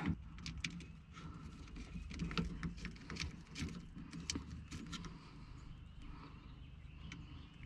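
Scattered light clicks and knocks at irregular intervals as a power-window motor is handled and worked into place inside a car door.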